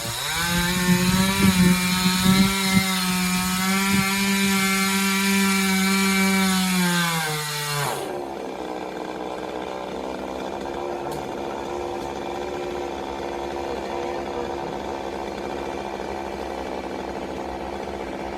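Chainsaw running at full throttle, cutting into a coconut palm trunk, with a few knocks in the first seconds. About eight seconds in, the engine drops back to a steady idle.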